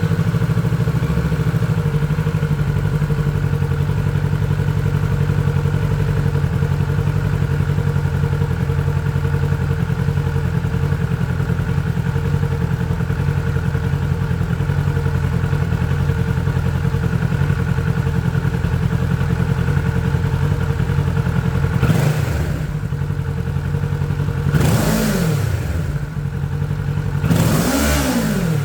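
2023 Kawasaki Ninja 650's parallel-twin engine idling steadily through its exhaust just after starting. It is revved in three short blips near the end, each rising and falling in pitch.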